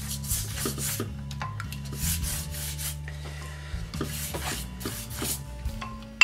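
Pastry brush swishing over a sheet of filo dough in quick strokes, in three bursts of brushing: at the start, around two seconds in, and from about four to five and a half seconds.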